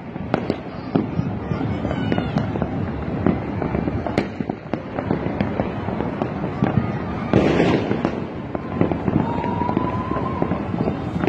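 Many fireworks and firecrackers going off at once: a continuous crackle of sharp pops and bangs, with a heavier burst about seven seconds in and a thin, slightly rising whistle a couple of seconds later.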